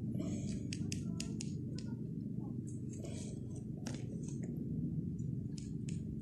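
Light clicks and short scrapes of plastic toy horse figurines' hooves being stepped along concrete paving stones, over a steady low hum.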